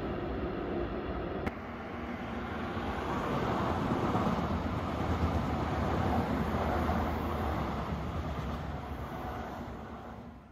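Train running on the rails, a steady rumble of wheels on track: a freight train of tank wagons rolling away. After a click about a second and a half in, the train noise swells and then fades out near the end.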